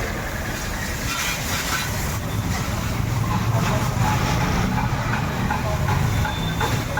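Water sprayed hard onto a motorcycle during washing, a steady hiss with a low mechanical hum that grows a little stronger about three seconds in.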